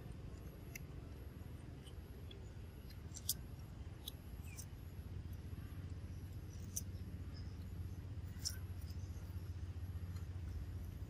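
Quiet outdoor background: a steady low rumble with a few short, sharp clicks scattered through it, the loudest about a third of the way in.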